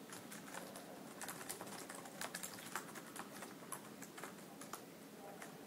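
Typing on a computer keyboard: light, irregular keystrokes, several a second.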